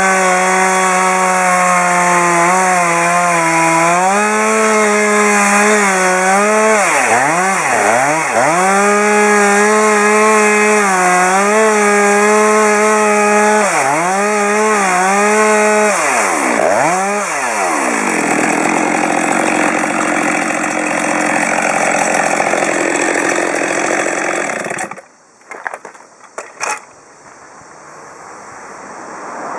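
Chainsaw ripping pine lengthwise into boards. Its high steady pitch sags and recovers several times as the chain bogs under load, then gives way to a rougher rasp without a clear pitch. The sound cuts off abruptly about 25 seconds in, leaving a few clicks and a faint rushing noise.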